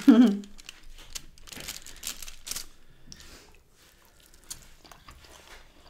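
Flatbread being torn apart over a foil takeaway tray: crackly rustling and crinkling for about a second, a little way in. Then the bread is bitten into and chewed, with soft mouth sounds.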